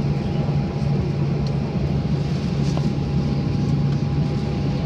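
Inside the cabin of a Boeing 737-800 taxiing on the ground: its CFM56-7B engines at idle give a steady low hum with a thin, constant whine above it.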